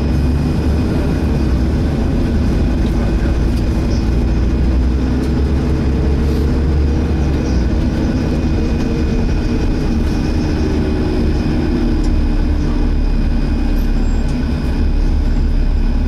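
Inside a Volvo B7TL double-decker bus on the move: the six-cylinder diesel runs with a steady low rumble under a constant high whine from the engine cooling fan, the vacuum-cleaner-like "hoover" sound.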